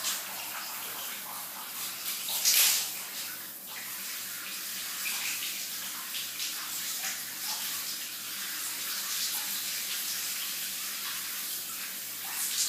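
Shower water running and spattering, with a louder splash about two and a half seconds in.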